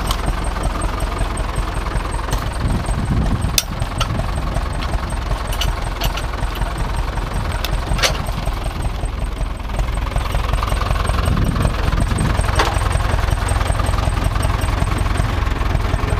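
Tractor diesel engine running steadily, getting slightly louder in the second half, with a few sharp metallic clicks or knocks over it.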